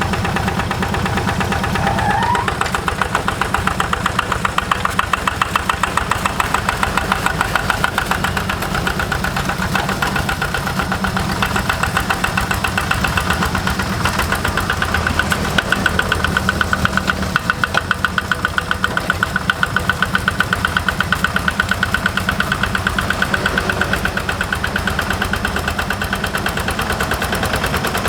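Yanmar single-cylinder diesel engine of a Quick G1000 hand tractor running steadily, with a rapid, even thumping of its firing strokes. A brief faint rising chirp sounds about two seconds in.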